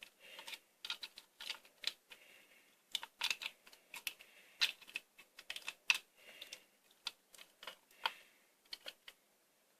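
Adhesive tape being pressed and smoothed onto a flashlight by hand: irregular small clicks and crackles, some in quick runs, fading out near the end.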